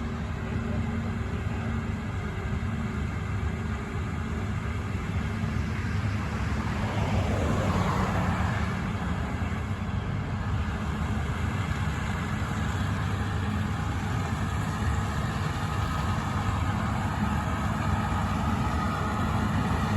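Steady low engine drone of farm machinery at work in a corn harvest, with a swell of noisier machinery sound about seven to nine seconds in.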